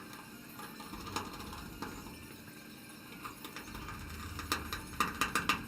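Small metallic clicks and taps of a screwdriver and hardware as screws are driven back in on an electrical receptacle, with a quick run of sharper clicks near the end.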